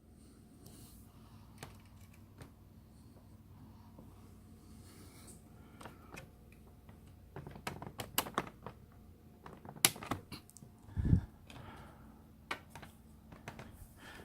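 Handling noise from a small plastic model car: scattered light clicks and taps, busier in the second half, with one dull bump near the end, over a faint steady hum.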